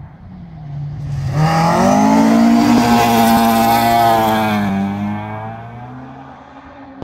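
Rally car engine revving hard as the car approaches and passes on a gravel stage. The engine pitch climbs sharply about a second and a half in and holds high while it is loudest, then falls and fades as the car moves away.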